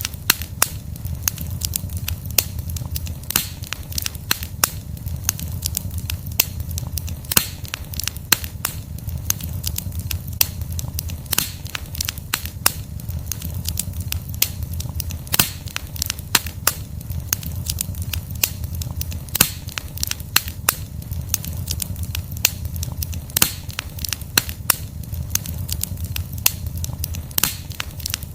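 Log fire burning with a steady low rumble of flames and frequent sharp crackles and pops of burning wood.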